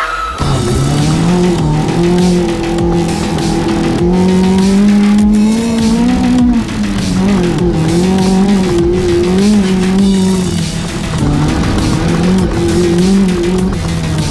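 Off-road race buggy's engine running hard, heard from inside the cockpit, its pitch rising and falling over and over with throttle, with knocks and rattles from the rough dirt track.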